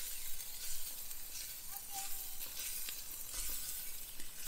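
Sausages sizzling on a hot grill grate as they are turned over with metal tongs.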